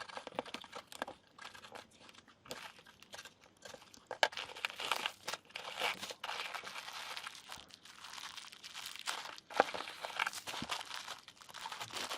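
Parcel packaging being handled and opened: irregular crinkling and rustling with many small crackles, in fits and starts.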